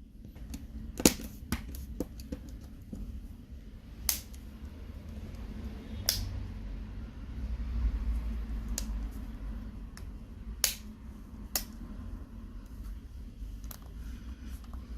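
Irregular sharp clicks and taps of a smartphone's plastic frame and cover parts being handled and pressed back together during reassembly, over a low rumble of handling. Half a dozen of the clicks stand out.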